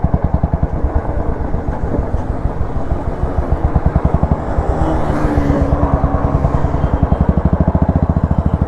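Royal Enfield Classic 350's single-cylinder engine running at low revs through an aftermarket straight-cut exhaust with its dB killer removed, giving a loud, even thumping beat.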